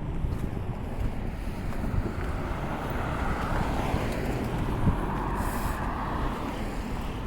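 Street traffic going by, with a vehicle swelling past in the middle, under wind rumbling on the microphone.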